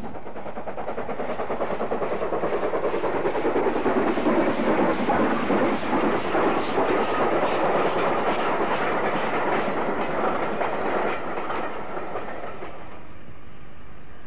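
Steam-hauled passenger train passing: a rapid, regular beat of the locomotive and its carriages running on the rails. It grows louder, is loudest about five seconds in, and dies away over the last few seconds.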